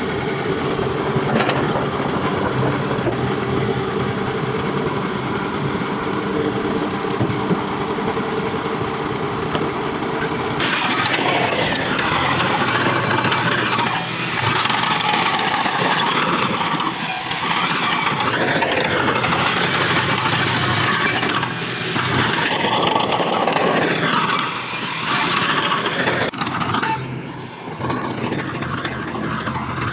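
Heavy earthmoving machinery at work: a diesel engine runs steadily, and about ten seconds in the sound changes abruptly to a louder, rougher mix with wavering higher-pitched tones.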